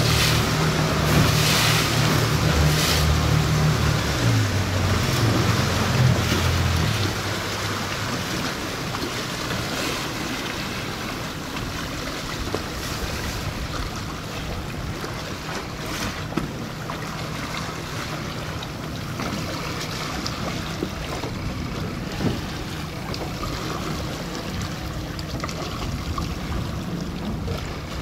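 Motorboat engine running, louder for the first several seconds and then settling to a quieter steady hum, with wind and water noise throughout.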